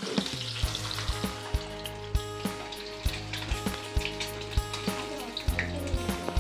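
Whole boiled eggs sizzling and crackling in hot oil in a metal kadai, with background music carrying a steady beat of about two strokes a second.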